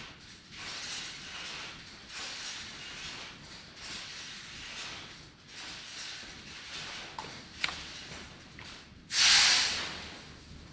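Sound sculpture of hanging fabric sleeves giving off swelling hisses and swishes, one every second or two, with a sharp click near the end and a short, loud rushing burst about nine seconds in.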